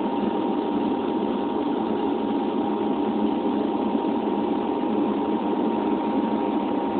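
Turboprop airliner in cruise, heard from inside the passenger cabin: a steady engine and propeller drone with a constant hum over it and no change in pitch. The aircraft is LIAT's de Havilland Canada Dash 8.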